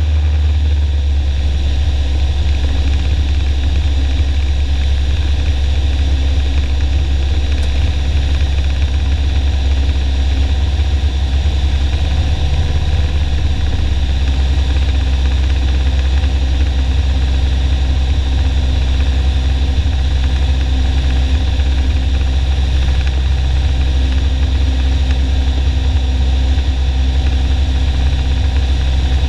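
Piper Warrior's four-cylinder Lycoming engine and propeller droning steadily in flight, heard inside the cabin as a loud, even low hum.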